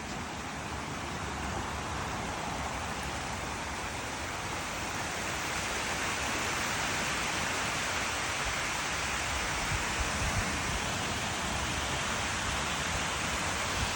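Waterfall rushing: a steady hiss of falling water that grows a little louder about five seconds in.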